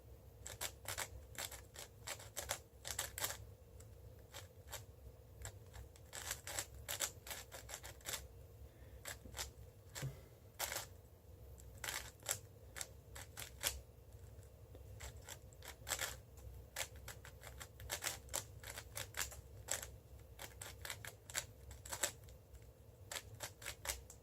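Plastic clicking and clacking of a 5x5 speed cube (Cubicle WuShuang M) being turned quickly by hand, in irregular rapid runs of layer turns with short pauses, while its centres are being solved.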